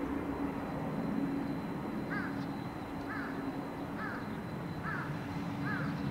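A crow cawing five times, about once a second, over the steady rumble of a Boeing 777 airliner's engines as it rolls out on the runway after landing.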